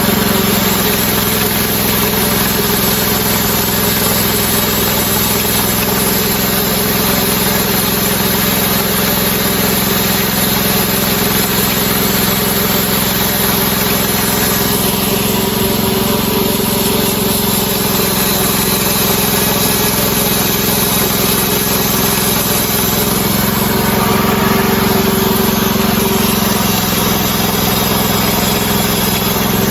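Hudson Oscar band sawmill's engine running steadily at working speed as the band blade makes a cut through a log.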